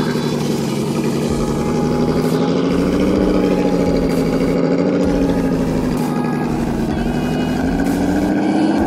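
1/8-scale RC crawler's brushed motor (a Holmes Hobbies Trailmaster 550) and geared drivetrain whining as the truck crawls through mud, the pitch dipping and rising with the throttle and climbing a little near the end.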